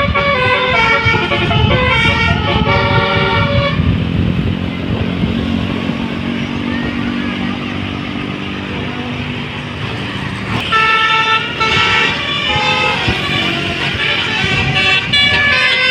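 Multi-tone telolet bus horn playing a stepping melody, giving way after about four seconds to engine and road noise with a low hum. The horn melody starts up again about ten and a half seconds in.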